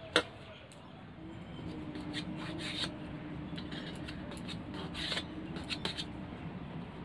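Hands working soft dough on a brass plate, dividing it into portions: soft rubbing and scraping with light clicks of bangles against the plate. A low steady hum comes in about a second and a half in.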